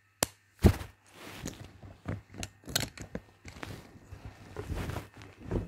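Close handling noise: a sharp knock about half a second in, then irregular clicks and rustling as small plastic toys and the recording device are moved about right at the microphone.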